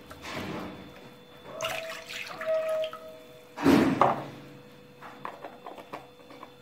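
Milk poured from a carton into a drinking glass, then the glass of milk tipped into a glass mixing bowl of oil and water, with a loud splashing pour about three and a half seconds in. A few light knocks follow near the end.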